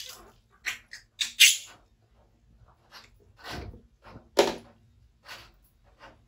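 Water splashing and dripping in short bursts as hands wash a wet baby monkey over a plastic basin: several quick splashes in the first second and a half, then two more about three and a half and four and a half seconds in.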